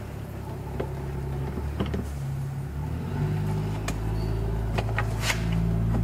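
A steady low motor hum, like a vehicle engine running nearby, growing louder about halfway through. Over it come a few light clicks and taps from a hand Torx screwdriver turning a screw out of a BMW E90 rear door trim panel.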